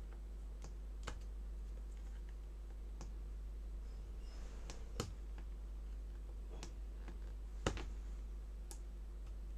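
Sharp, scattered clicks of a small pry tool working at the metal shield on a Microsoft Surface's board, about half a dozen, the loudest about five and just under eight seconds in. A steady low hum lies underneath.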